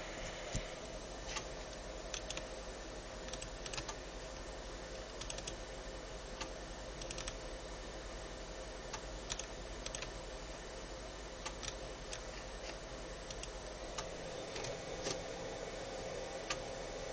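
Scattered, irregular clicks of computer input buttons being pressed, a few a second at most, over a steady electrical hum and hiss from the running machine.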